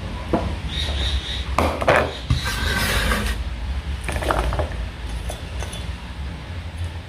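Kitchen cookware clatter: utensils knocking and clinking against a pan and dishes. There are several separate knocks, a brief ringing clink about a second in, and a steady low hum underneath.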